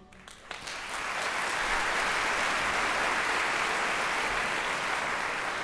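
Theatre audience applauding: a few scattered claps at first, filling out within the first second into steady, full applause.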